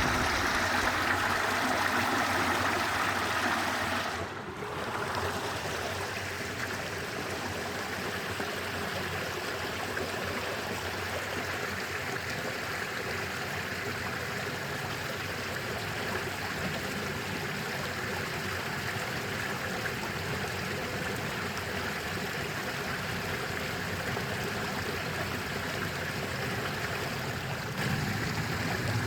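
Stream water flowing steadily, a continuous rushing and trickling. It is louder and brighter for about the first four seconds, then changes abruptly to a slightly quieter, even flow.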